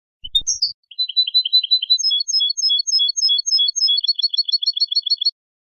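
European goldfinch song, one continuous phrase of repeated high notes: a quick run of notes, then two-note figures about three a second, quickening to about seven a second near the end before stopping abruptly. A faint low thump comes just before the song begins.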